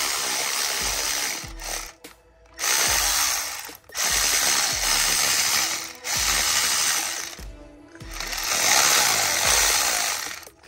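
A power wrench runs in about five bursts of one to two seconds each, with short pauses between them. It is loosening the starter motor's mounting bolts.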